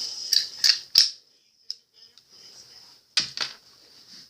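Small metal parts of a Jimenez JA-22 pistol clicking and clacking as they are handled and fitted back together. The sharpest click comes about a second in, and two more come close together near the end.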